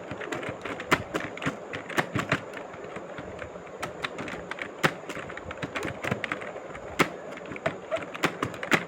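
Typing on a mobile phone's on-screen keyboard: irregular quick taps, a few a second, as a timed typing test runs on.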